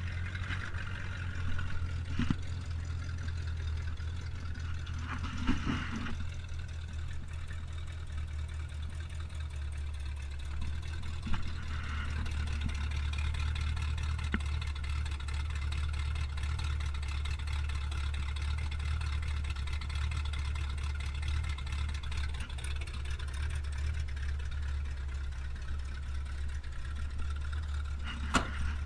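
1979 Ford Bronco's V8 engine idling steadily, warming up after a cold start in the snow. A few short knocks, the loudest about six seconds in.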